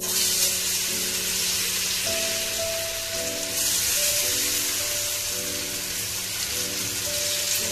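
Marinated chicken pieces sizzling in hot oil in a frying pan, the sizzle starting suddenly as the first pieces go in and kept up as more are laid in by hand. Background music with steady held notes plays underneath.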